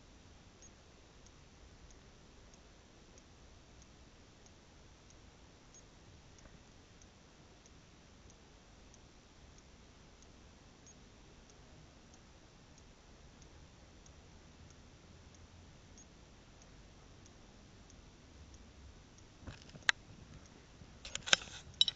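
Quiet room tone with soft, evenly spaced ticks. Near the end come a few loud sharp clicks and knocks.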